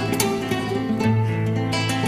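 Background music score: plucked strings over sustained low notes.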